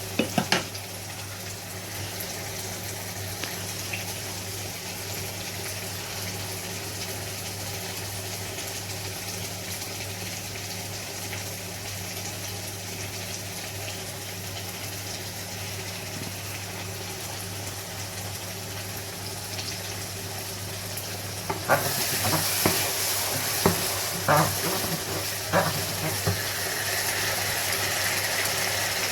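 Tomato stew base simmering and sizzling in a pot, a steady hiss over a steady low hum. About 22 s in, the sizzling gets louder and a few knocks follow.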